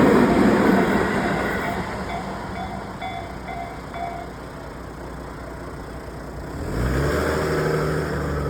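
The tail of a train passing over a level crossing, fading away over the first couple of seconds, while the crossing's warning bell rings a few more strokes and stops. About seven seconds in, a car engine starts up with a rising rev as the car pulls away.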